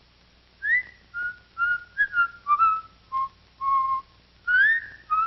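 A man whistling a tune in short, clear notes, opening with an upward swoop and swooping up again near the end.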